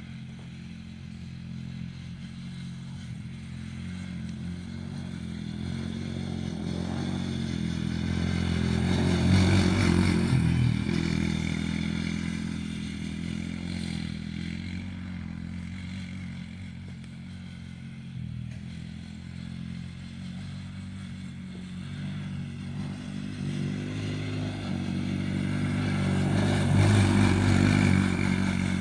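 Small youth ATV (four-wheeler) engine running steadily as it laps a dirt oval. It grows louder as the quad passes close, about nine seconds in and again near the end.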